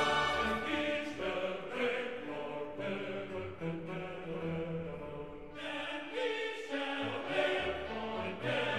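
Slow choral music: voices singing long held notes.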